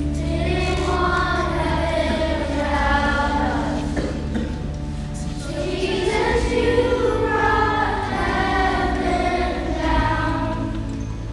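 A group of children singing together in two long phrases over a steady instrumental accompaniment.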